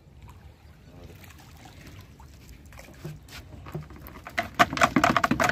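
Cast net being hauled up out of the water, with water splashing and pattering off the mesh. It builds to a loud run of splashes and ticks about four seconds in.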